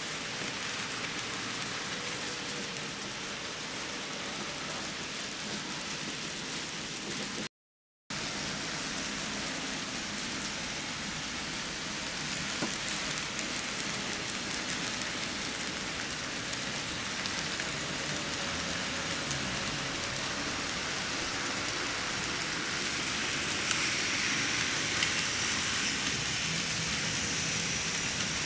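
A steady, even hiss like rain, broken by a half-second drop to silence about seven and a half seconds in.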